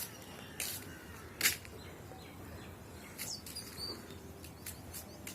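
A string of short, sharp scraping or clicking noises at irregular intervals, the loudest about a second and a half in, with faint bird chirps near the middle.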